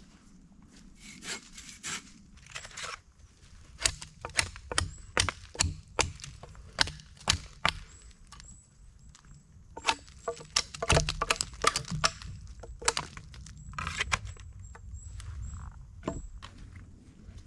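Dry wood being worked by hand: a run of sharp, irregular cracks and knocks, thickest in the middle of the stretch, over rustling.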